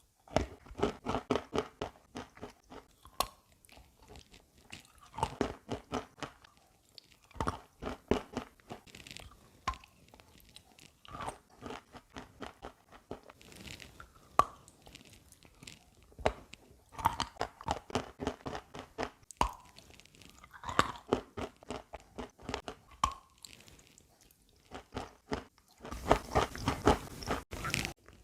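Chalk coated in chalk paste being bitten and chewed: crisp crunches come in bursts of rapid crackles, with short pauses between.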